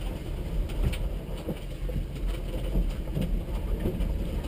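Low, steady rumble of a stationary rally car, heard from inside its stripped cabin.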